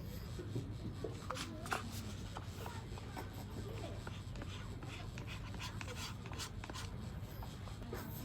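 A spoon lightly scraping and tapping as whipped cream is spooned onto cups of coffee: scattered small clicks and rubbing, with faint voices under a steady low hum.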